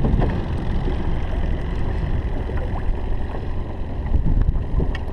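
Wind buffeting the camera microphone as a steady low rumble over the open water, with a few faint clicks.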